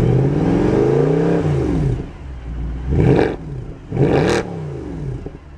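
Mercedes-Benz C63 AMG Edition 507's 6.2-litre V8 revved through its quad-tip exhaust while parked. One longer rev rises and falls back over the first two seconds, then two quick blips about a second apart each drop back to idle.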